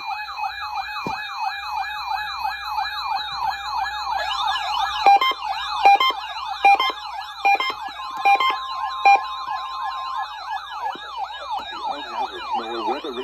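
Electronic siren sounding a fast yelp, about three rising-and-falling sweeps a second, layered with steady alarm tones and sharp beeps. The siren winds down in pitch near the end.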